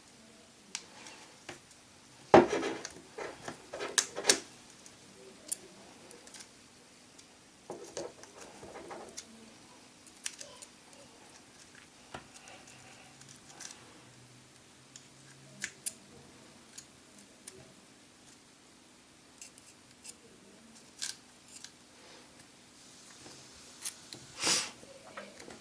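Small metal tools clicking and scraping against an iPhone 4 as its glued screen is pried loose from the frame: scattered sharp clicks and short scrapes, loudest about two and four seconds in and again near the end.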